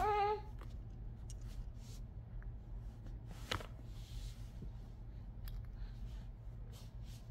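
A baby's brief high coo right at the start, then a mostly quiet room with small scattered clicks and one sharper click about three and a half seconds in, over a steady low hum.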